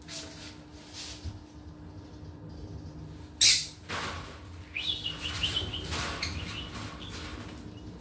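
Green-cheeked conures chirping in short stepped calls past the middle, with one sudden loud burst of noise about three and a half seconds in.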